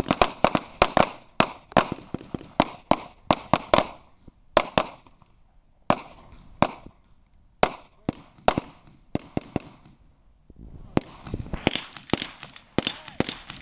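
Pistol fire from several shooters on a line: rapid, irregular shots for the first four seconds, then scattered single shots and pairs, a short lull around ten seconds in, and firing picks up again near the end.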